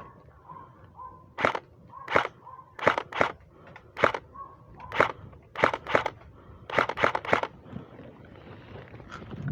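Airsoft gun firing single shots, about eleven sharp cracks at an uneven pace over some six seconds, several in quick pairs and triples.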